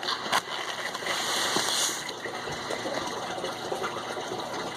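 Steady rushing noise like running or pouring water, with a single sharp click about a third of a second in.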